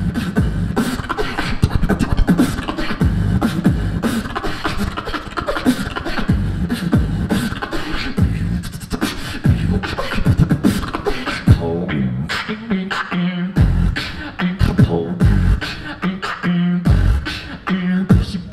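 Solo beatboxing, amplified through a handheld microphone: a fast run of mouth-made kick, snare and hi-hat sounds, with deep held bass notes coming in more in the second half.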